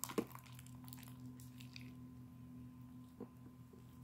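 Homemade glue slime squeezed and kneaded by hand: soft wet clicks and squelches, one sharp one just after the start, then fainter ones. A steady low hum runs underneath.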